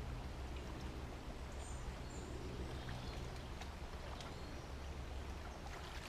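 Shallow brook water sloshing and trickling as sticks and debris are pulled out of a blockage, over a steady low rumble. A few faint high bird chirps come through, twice in the first half.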